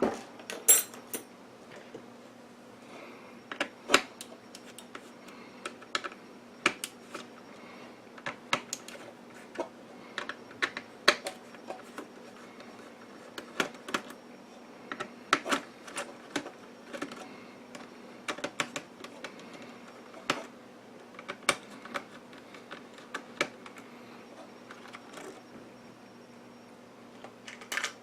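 Irregular light clicks and taps of small tools and metal parts being handled while the ceramic hybrids and their hold-down clips are removed from an oscilloscope board, over a faint steady hum.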